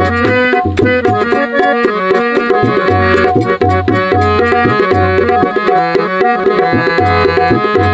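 Instrumental interlude of a devotional folk song: a harmonium plays a sustained reedy melody over a steady hand-drum beat of deep bass strokes and sharp slaps.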